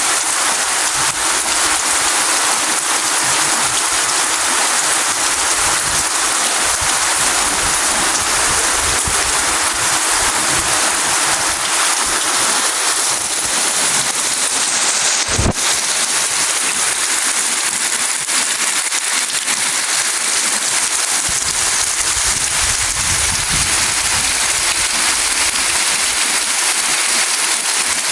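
Steady rain falling, a dense even hiss, with one sharp knock about halfway through.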